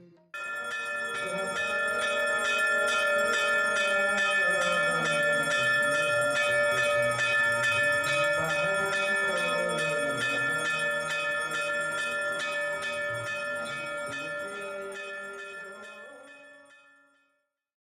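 Temple bell rung rapidly and without a break during aarti worship, its many overlapping ringing tones sustained, fading away near the end.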